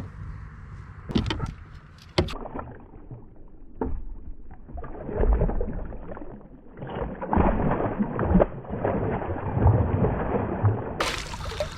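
Northern pike splashing and thrashing in the water beside a kayak as it is brought to the net. Two sharp knocks come in the first couple of seconds, then a longer stretch of irregular splashing with low thuds.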